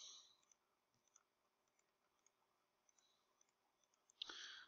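Computer mouse clicking several times, faint and unevenly spaced, as digits are entered on an on-screen calculator.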